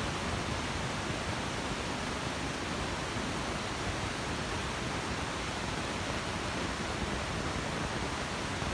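Steady, even rushing noise of a subway station's ambience, with no distinct events.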